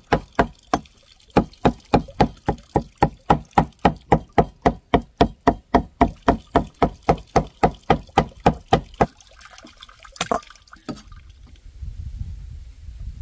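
Rapid, even chopping with a knife on a board, about four strokes a second, with a short break near the start and stopping about nine seconds in. A single louder knock follows about a second later.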